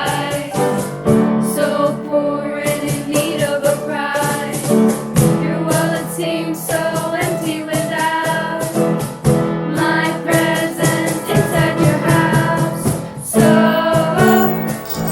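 A song playing: singing over instrumental backing with a steady beat.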